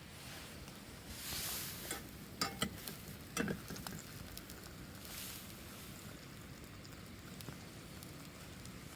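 A few light clicks and knocks, clustered about two and a half to three and a half seconds in, with brief rustling noises before and after.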